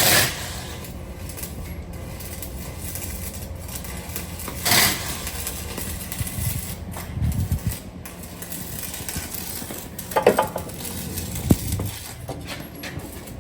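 Scattered metal clanks and knocks from work on a car's new exhaust piping, over a steady low hum. One knock comes at the start, another about five seconds in, and a quick cluster plus a single sharp knock come near the end.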